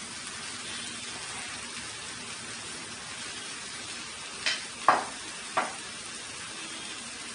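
Marinated chicken frying in a pan of sautéed onion, tomato and masala, a steady sizzle. Three short knocks come a little past halfway.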